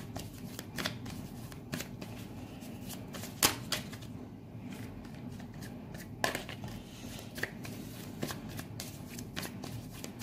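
Tarot deck being shuffled by hand: an irregular run of soft card clicks and riffles, with a couple of louder snaps about three and a half and six seconds in.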